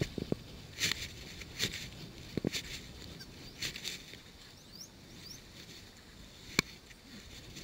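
Fly line being worked by hand on a fly rod: about four short hissing swishes in the first four seconds, with a few light handling thumps and one sharp click late on. A couple of faint bird chirps come in around the middle.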